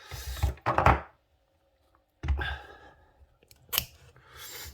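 A man coughing twice from a heavy cold, with a few light clicks of handling between.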